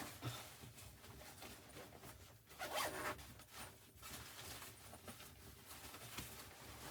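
A zipper being pulled in several short strokes, the longest and loudest about two and a half seconds in.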